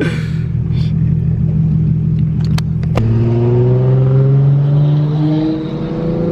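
Turbocharged Lexus IS300 inline-six with a straight-pipe exhaust, running steadily and then accelerating from about halfway. The engine note climbs in pitch, dips briefly at a gear change, then climbs again. A sharp knock comes just as the acceleration starts.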